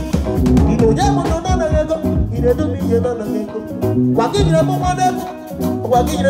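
Live band music through PA speakers: a man sings a gospel melody into a microphone over drum kit, guitar and electronic keyboard.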